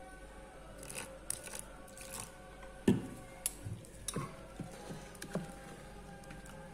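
Plastic spoon stirring wet bajji batter in a stainless steel bowl, with irregular clicks and knocks of the spoon against the bowl; the loudest knock is about three seconds in.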